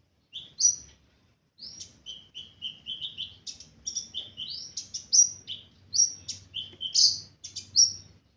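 A caged sunbird, the bird sold in Indonesia as the 'ninja hummingbird', singing a fast, chattering song of short, high chirps and slurred notes. A brief opening phrase is followed by a pause, then a dense run of notes.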